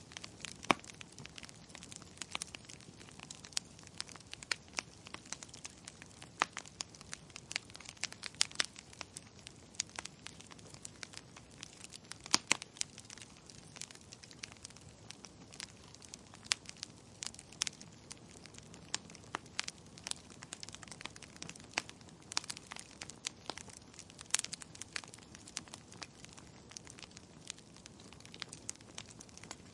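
Wood fire crackling: burning logs giving off irregular sharp pops and snaps, several a second at times, over a faint steady hiss.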